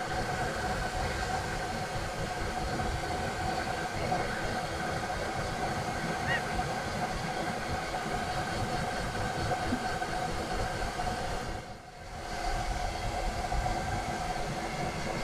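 Hair dryer running steadily, a fan-motor whoosh with a constant whine, drying a newborn kitten's wet fur. It dips briefly near the end.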